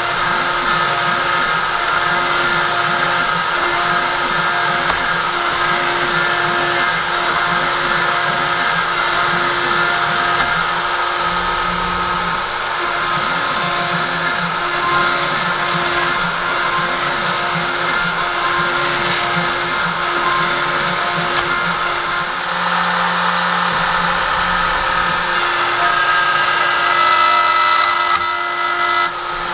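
CNC router at work on a wooden board: the spindle runs with a steady high whine and hiss, while the stepper motors give a lower tone that rises and falls over and over as the axes move.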